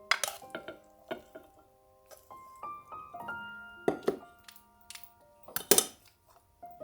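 Soft piano music with single held notes, broken by a few sharp knocks: one at the start, one about four seconds in, and the loudest pair just before six seconds.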